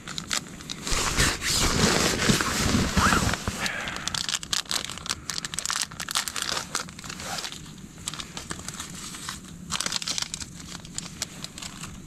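Plastic-foil wrapper of a single-serve pour-over coffee packet crinkling as it is handled and opened by hand. The crackles come thick in the first few seconds, then turn sparser and more scattered.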